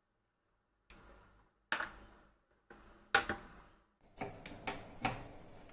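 Kitchenware being handled on a stovetop: three separate sharp knocks spread over a few seconds, then a quick run of light clicks and clinks near the end.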